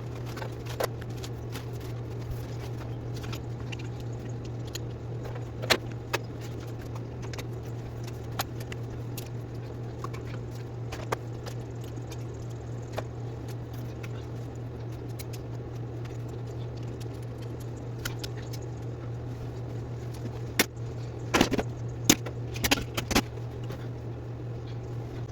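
Scattered clicks and clatters of small hard plastic toys being picked up and dropped into piles, with a flurry of clattering near the end, over a steady low hum.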